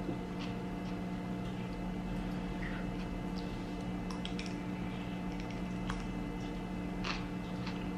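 Someone eating noodle soup: a ceramic soup spoon clicks softly against the bowl a few times among quiet chewing and sipping, over a steady low hum.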